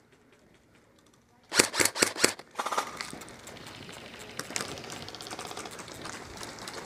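Airsoft rifle firing a rapid string of shots, six or seven sharp cracks in under a second, about a second and a half in. After that comes a continuous crackling, clattering noise.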